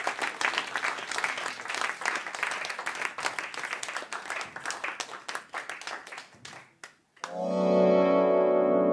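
Audience applause dying away, a brief hush, then a sustained synthesizer chord comes in about seven seconds in and holds steady.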